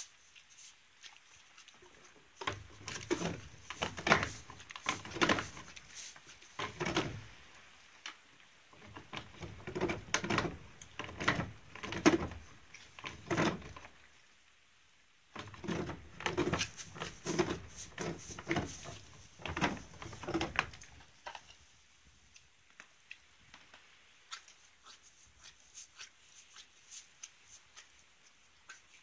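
A pony working at a hanging lick treat on a rope, the lick knocking and rubbing against the wooden stall wall in three bouts of quick repeated knocks, a few a second, before it goes quiet apart from faint ticks.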